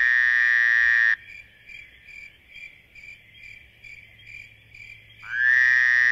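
Spooky night-ambience sound effect: crickets chirping steadily at about two chirps a second, with a long high whining tone that slides up and holds for about a second and a half at the start and again near the end.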